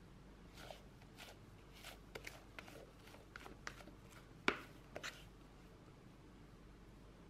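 Spatula scraping sponge cake batter out of a mixing bowl: a run of soft scrapes and light taps, with one sharper tap about four and a half seconds in, dying away about five seconds in.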